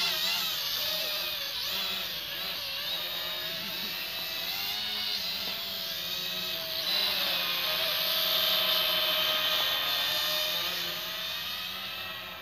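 Small toy camera quadcopter's four little motors and propellers whining in flight, the pitch wavering up and down as the throttle changes, louder from about seven seconds in.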